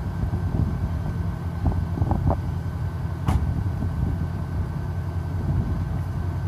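Mercedes-Benz CL550's V8 idling steadily through one-chamber mufflers fitted in place of the stock mufflers, a deep, even exhaust rumble. A single sharp knock about three seconds in.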